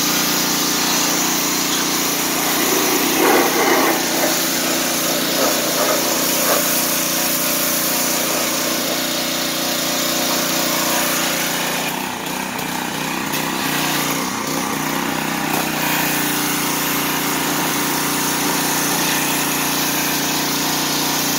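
Small gas engine of a Craftsman pressure washer running steadily, with the hiss of its high-pressure water jet spraying a snowplow blade.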